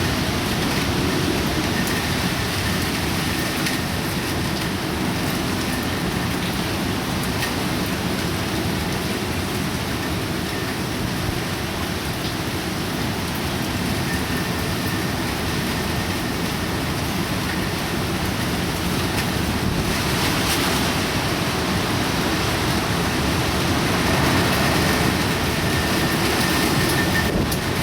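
Heavy typhoon rain with wind, a steady dense hiss of rain, growing a little louder near the end.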